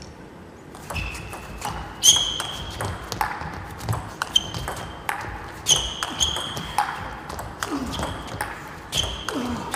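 Table tennis rally: the plastic ball clicking back and forth off the players' bats and bouncing on the table with a short ringing ping, about two hits a second, starting about a second in.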